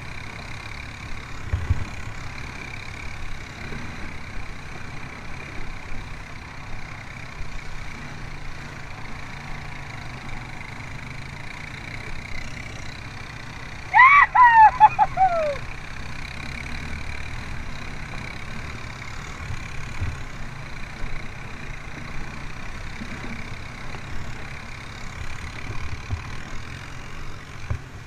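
ATV engines running steadily while the quads ride through shallow river water, with a constant hiss of water spray. About halfway through, a loud high call with several falling pitches lasts about a second and a half.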